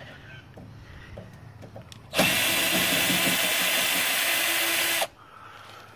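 Cordless drill-driver running for about three seconds, driving a screw out of a server's sheet-metal case. It starts about two seconds in and stops suddenly, with faint handling taps before it.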